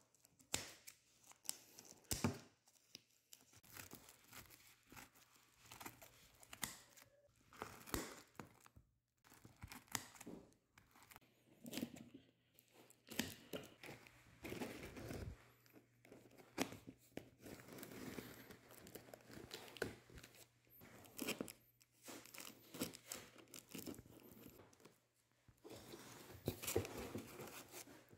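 Scissors cutting through bubble wrap and slitting packing tape on a cardboard box, with plastic crinkling and tearing in irregular crackles and rustles as the parcel is opened.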